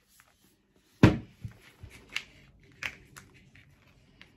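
A single thump about a second in, then a few light clicks and taps as the plastic parts of an electric breast pump are handled and set down.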